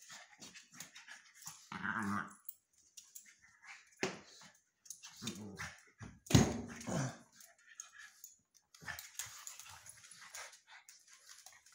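Two pugs play-fighting on a tile floor, giving short bursts of dog vocalising, the loudest about six seconds in. Quick clicks, likely claws and paws on the tile, fall between the bursts.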